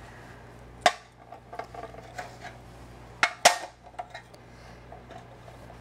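Baked stuffed quahog shells being lifted and set down among the pans, making sharp clinks and clatters of shell on metal sheet pan and platter. There is one loud knock about a second in and a close pair of knocks past the middle, with lighter rattles between them.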